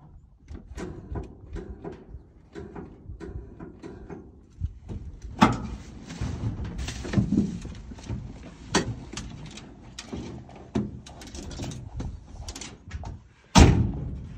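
Handling noises from an old Ford pickup's cab and doors: scattered clicks, knocks and rustles as someone moves about and gets out, with one loud knock near the end. The engine is not running.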